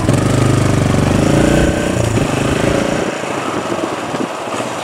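Motorcycle engine running under way. Its steady note is strong at first, then weakens and gets quieter from about two to three seconds in.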